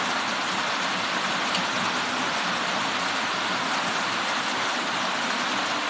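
A steady, even hiss at a constant level, with no rhythm or separate knocks in it.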